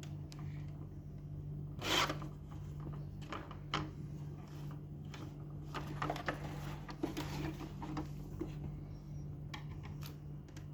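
Plastic latch clips on the side of an NCR ATM banknote cassette being pressed and worked free: scattered clicks and plastic scraping, with one louder click about two seconds in. A steady low hum runs underneath.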